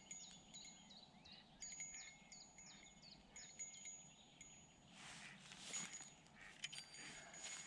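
Small bite-alarm bell on a fishing rod tinkling faintly in several short runs of jingles, the sign of a fish biting. Birds chirp alongside it.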